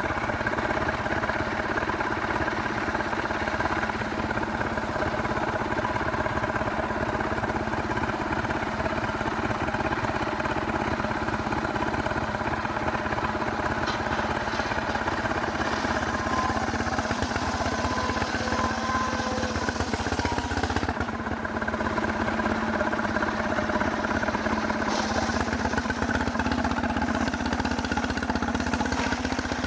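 Stihl chainsaw running steadily at high speed, milling through a very hard cemara log.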